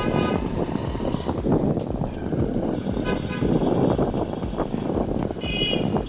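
Rumbling wind and road noise from riding in a moving vehicle through street traffic. Short horn toots sound three times: at the start, about halfway through, and near the end, where the last is the highest and brightest.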